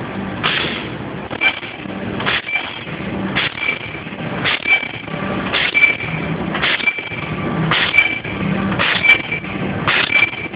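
Non-woven bag making machine running in steady automatic cycles: a regular stroke a little under once a second, each with a short high tone, over a low hum that pulses in time.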